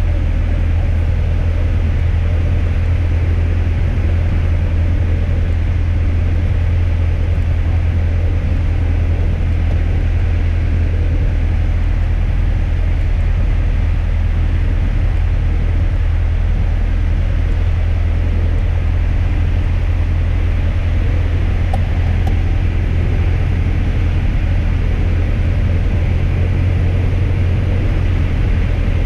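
Steady low drone of a Piper PA-28's engine, propeller and airflow heard inside the cabin, with the engine throttled back for a glide approach after a simulated engine failure.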